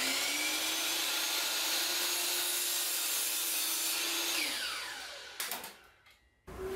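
Miter saw motor running at full speed with a high whine, then switched off about four and a half seconds in and winding down with a falling pitch.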